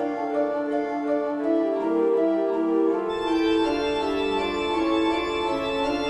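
Eerie horror-style organ music: a slow melody of long held notes, joined by a fuller, lower sound and brighter upper tones about halfway through.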